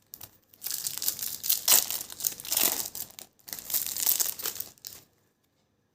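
A trading-card pack wrapper crinkling and tearing as it is ripped open and pulled apart, in several bouts starting about half a second in and stopping about a second before the end.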